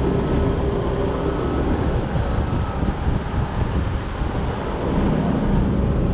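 Diesel engine idling steadily, a continuous low rumble.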